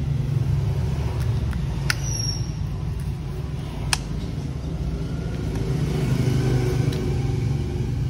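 Steady low mechanical rumble in the background, with two sharp clicks about two and four seconds in as a Makita 18V cordless rotary hammer is turned over and handled; the hammer's motor is not running.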